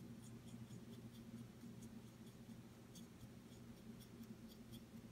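Near silence: a low steady hum, with faint irregular light ticks of a paintbrush being feathered over the plastic claws of a miniature.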